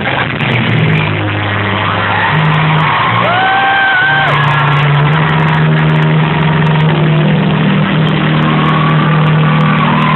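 Live rock band playing loudly, with long held low bass notes under a dense droning wash of guitar; a few seconds in, a pitched line slides up, holds and slides back down.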